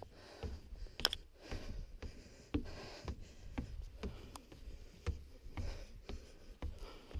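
Footsteps going down wooden stairs: uneven thuds and knocks about every half second, with a sharp knock about a second in.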